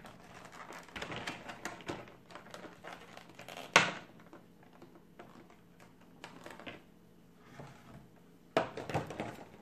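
Clear plastic bag crinkling and rustling as it is handled and pulled off a vinyl figure, with one sharp loud snap about four seconds in and a burst of crinkling near the end as the bag is cast aside.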